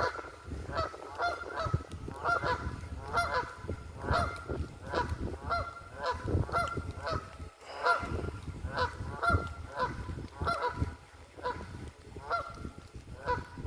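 A flock of geese honking, many short nasal calls overlapping and repeating about two to three times a second without a break.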